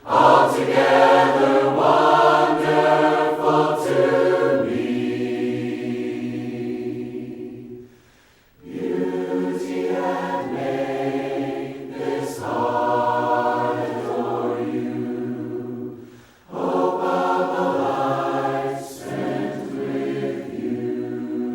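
A cappella choir singing a hymn in long held phrases, with brief pauses about eight and sixteen seconds in.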